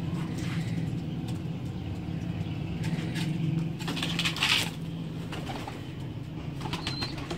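Pigeons cooing in a loft over a steady low hum, with a short rustling burst about four seconds in and a brief high chirp near the end.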